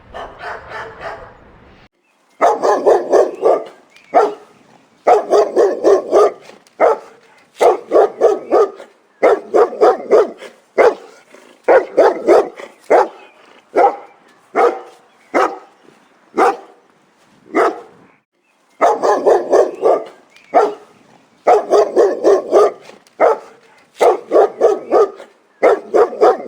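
A dog barking loudly in rapid bouts of several barks a second, with short pauses between bouts.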